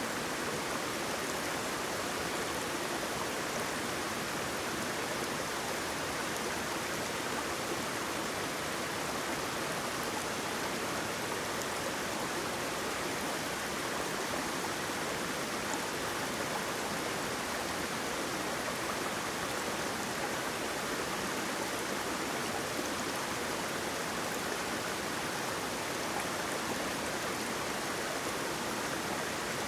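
Waterfall: falling water rushing in a steady, even hiss with no separate splashes or breaks.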